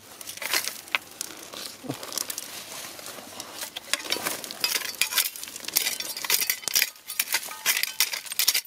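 A small hand digging tool scraping and clinking against stones in dry, gravelly soil: many quick, sharp clicks and scrapes, sparse at first and coming thick and fast in the second half.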